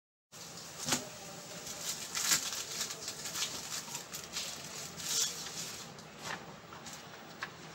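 Sheets of drawing paper being handled and smoothed on a drawing board: scattered paper rustles and light taps over a faint hiss.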